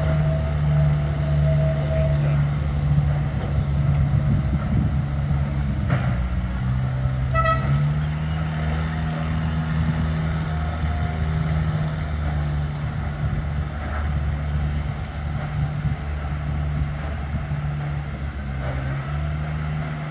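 An engine running steadily with a low hum, dropping briefly in pitch about seven seconds in and then picking up again, with a short toot just after.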